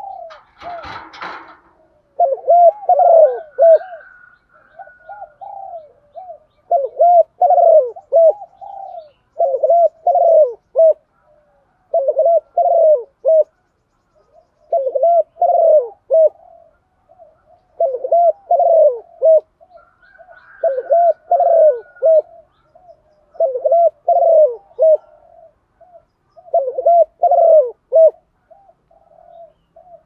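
Spotted dove cooing: about ten repeated coo phrases, one every two to three seconds, after a brief rustling noise near the start.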